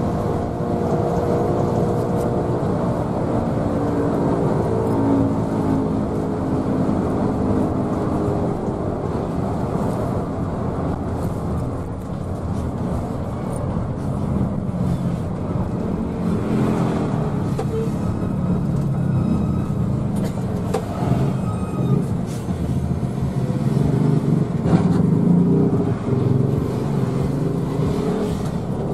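Intercity bus's diesel engine heard from inside the cabin, pulling hard under acceleration over a steady road rumble. The engine note shifts in pitch through the first several seconds.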